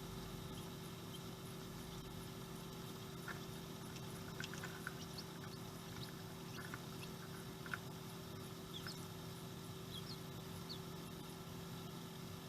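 Faint steady hum of the small fans circulating air inside a homemade refrigerator incubator, with scattered short, high peeps of quail chicks.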